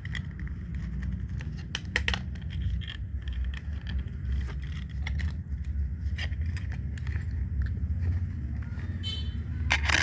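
Scattered clicks, scrapes and rustles of packaging and small manicure tools being handled, over a steady low rumble. There is a brief squeak about nine seconds in and a louder clatter at the end.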